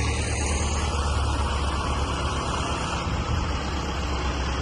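Heavy vehicle's diesel engine running steadily with a low, even drone.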